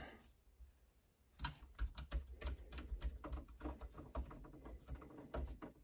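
Irregular light clicks and ticks of hands working at Square D QO tandem breakers and their wires in an open panel, starting about a second and a half in.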